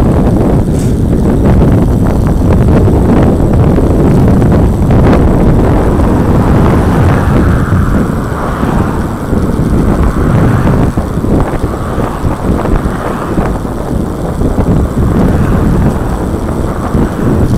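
Wind buffeting a handlebar-mounted camera's microphone on a road bike riding at speed, a loud, gusty rumble.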